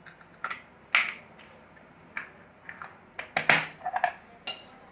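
Metal spoon clinking and tapping against a small glass cup while sugar and yeast are mixed: a dozen or so sharp, irregular clicks, the loudest cluster about three and a half seconds in with a brief ringing clink.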